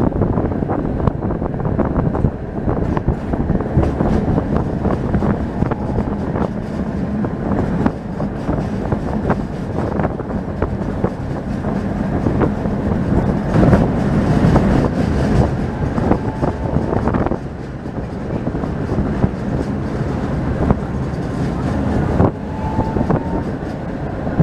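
Tram running on street rails: a steady rumble of steel wheels with frequent clicks and rattles over a low motor hum, louder for a few seconds about halfway.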